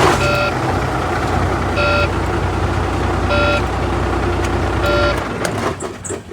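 Volvo semi truck's diesel engine running just after starting, with a steady low rumble, while a warning beep sounds four times about a second and a half apart; the rumble drops away about five seconds in. It starts now that a loose battery cable terminal has been tightened, the cause of the no-crank no-start.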